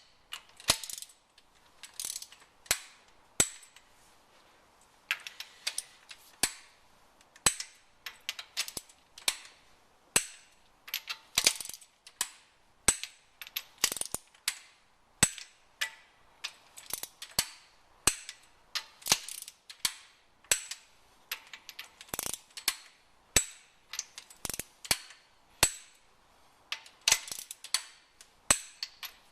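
Ratchet of a torque wrench clicking in short, irregular runs as the cylinder head bolts of a Toyota 4E-FE engine are tightened down.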